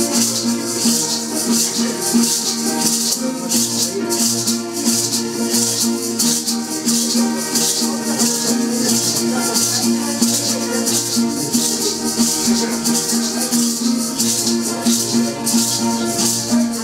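Ceremonial dance music: hand rattles shaken in a steady, fast rhythm over plucked string instruments playing a repeating tune.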